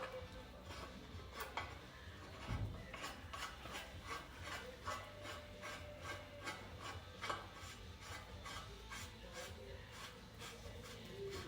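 Repeated scraping, rasping strokes of hand-tool work on truck suspension parts, a few a second and irregular, with a dull thump about two and a half seconds in.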